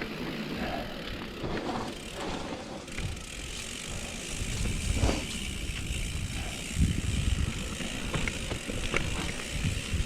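Mountain bike rolling down a wet dirt trail: tyre noise and rattling, with the rear hub ratchet clicking while coasting, and a few heavier bumps in the second half.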